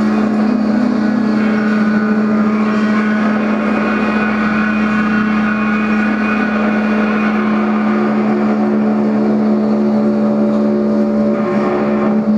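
Electric guitar feedback: a loud, steady drone on one low note with many overtones stacked above it. Near the end the note wavers as the guitar swings on its cord.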